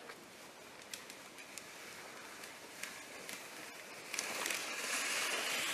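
Kick sled runners gliding and scraping over packed snow as the sled approaches: faint at first, growing louder from about four seconds in, with a few small clicks.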